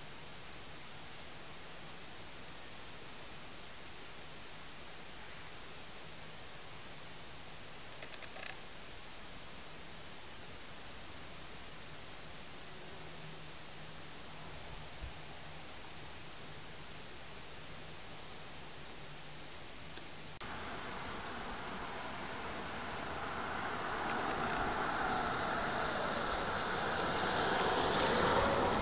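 Steady, unbroken chorus of crickets trilling at a high pitch. In the last third a broader rushing noise builds underneath it.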